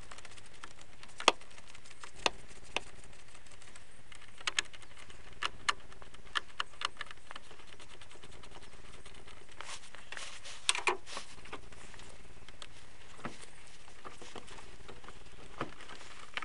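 Scattered sharp metallic clicks and taps of a 10 mm socket wrench working the clamps loose on a car battery's terminals, a few quick clicks together near the middle, over a faint steady hiss.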